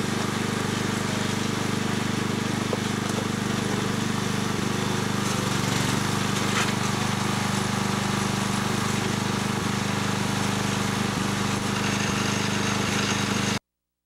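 Small engine on a homemade hydraulic backhoe running steadily, driving the hydraulic pump as the boom is worked. It cuts off abruptly near the end.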